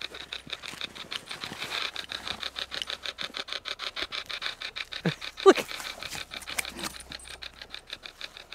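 Hack shack spirit box, a modified Radio Shack radio, sweeping through stations: chopped radio static pulsing about eight times a second, with brief snatches of broadcast voice about five seconds in.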